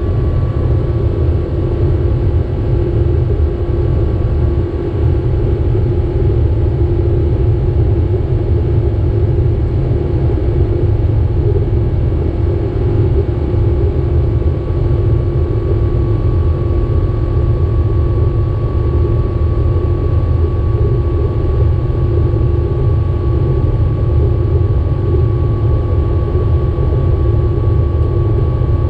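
Boeing 777-200 jet engines heard from inside the cabin: a steady, heavy rumble with a constant hum over it.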